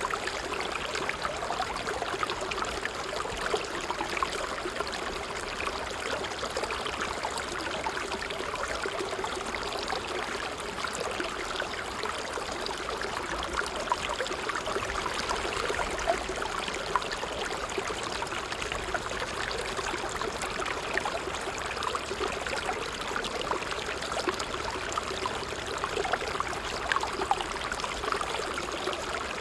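Water trickling steadily in a small stream, a dense continuous patter of small splashes and gurgles.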